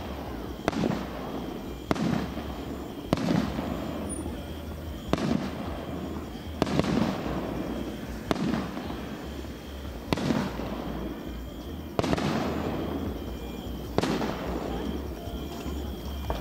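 Aerial firework shells bursting in a steady sequence: about ten sharp bangs, one every one and a half to two seconds, each trailing off in an echoing rumble.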